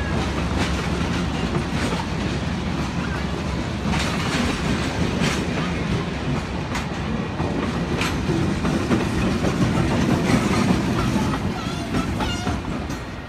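Maine Eastern Railroad passenger coaches rolling past: a loud, steady rumble of wheels on rail, with sharp clicks now and then as the wheels cross rail joints.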